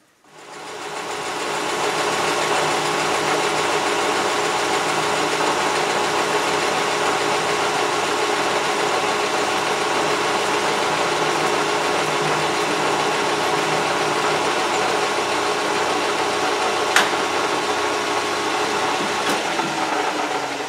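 Metal lathe starting up and running steadily with a hum of many steady tones, turning a welded steel ring in the chuck while the tool machines the face of one of its spokes. A single sharp click about seventeen seconds in.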